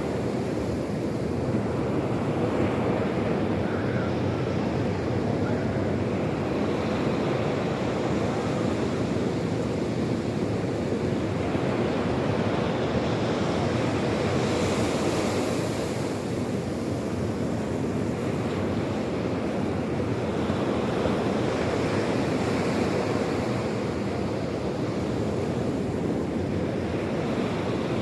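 Sea surf washing onto the shore in a continuous rush, swelling now and then as waves break, with wind buffeting the microphone.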